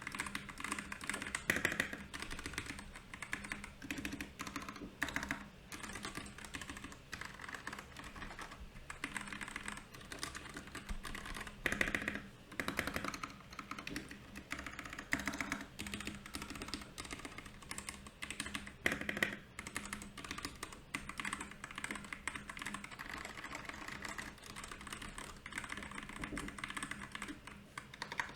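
Royal Kludge RK68 mechanical keyboard being typed on steadily and quickly, a dense run of key clicks and clacks, with a couple of louder flurries about twelve and nineteen seconds in.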